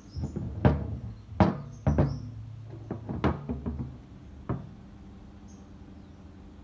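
Cast-iron mechanical hand-priming fuel pump for a diesel engine being turned over by hand on a workbench, knocking and scraping against the bench: a handful of sharp clunks over the first four and a half seconds, then only a low steady background.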